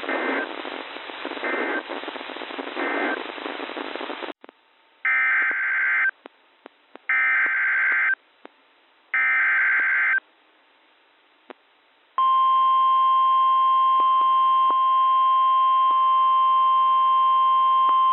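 NOAA Weather Radio alert signals heard through a radio receiver. First comes static hiss carrying three short data bursts, the EAS end-of-message code for the tornado warning just read. After a brief silence come three one-second screeching data bursts, the SAME header of a new alert. About twelve seconds in, the steady single-note warning alarm tone begins, opening a severe thunderstorm warning.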